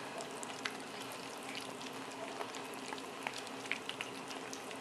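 Several kittens eating wet cat food from a plate: a steady run of many small, irregular wet clicks and smacks from their chewing and lapping.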